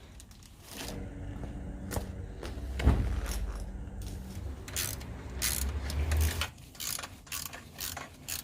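Hand-tool work on a motorcycle's exhaust: ratchet-like clicking and light metal knocks, over a low hum that stops about six and a half seconds in.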